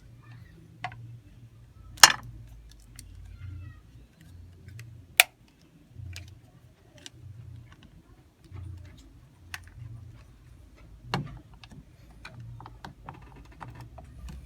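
Hard plastic battery pack casing of a cordless screwdriver being handled and fitted together: scattered light clicks and rattles, with two sharp loud clacks about two and five seconds in and a duller knock near eleven seconds.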